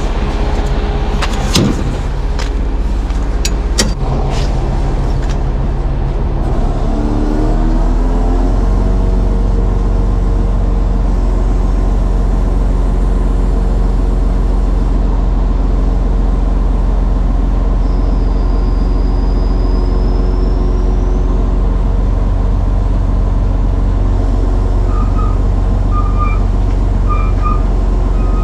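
Truck diesel engine and loader-crane hydraulics running steadily, the revs rising about seven seconds in and then holding at a raised speed as the crane is worked by radio remote. A few clanks in the first four seconds, a brief high squeal around the middle, and faint short beeps near the end.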